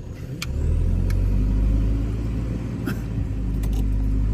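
JCB backhoe loader's diesel engine running under load, a steady low rumble that gets louder about half a second in, with a few sharp clicks.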